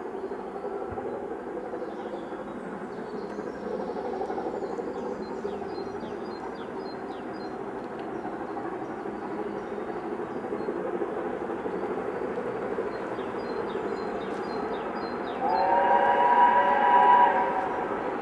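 An approaching train's steady rumble builds slowly. About fifteen seconds in, the train sounds a warning note for just under two seconds, several tones at once in a chord, and this is the loudest sound. Faint birdsong chirps over the top.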